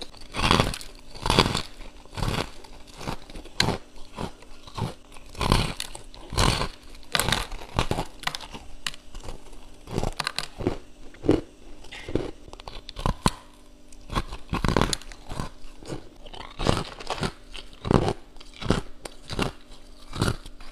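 Teeth biting into chunks of hard freezer frost: a long run of sharp, crisp crunches, one bite after another at an uneven pace.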